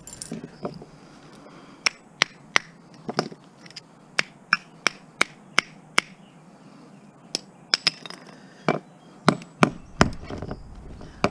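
About two dozen sharp taps and knocks from hand tools working on a microwave oven transformer's core and winding. The taps are irregular, with an even run of about three a second in the middle and louder knocks near the end.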